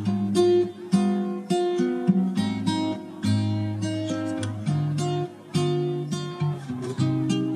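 Background music: a guitar plucking and strumming notes, each struck note ringing on and fading.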